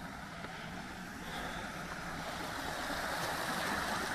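Mountain stream rushing, a steady even rush that grows slowly louder.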